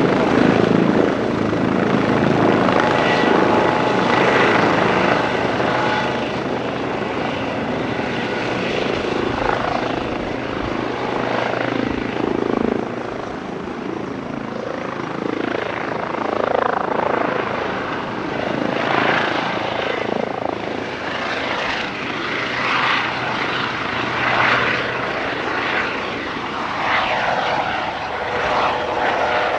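Airbus EC135 helicopter's turbines and rotors running as it hovers low and then moves off and climbs away, a steady whine over the rotor noise. Loudest at the start, easing slightly as it moves away.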